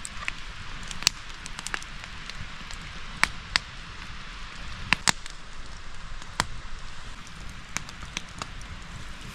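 Steady rain hiss, with irregular sharp ticks scattered through it.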